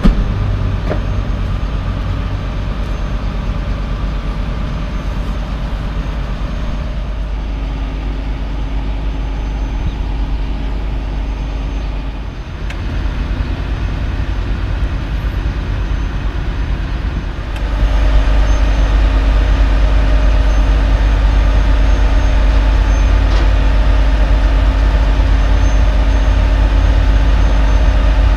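A car-hauler truck's diesel engine running steadily, with a pickup's door shut once right at the start. The engine sound grows louder about 18 seconds in.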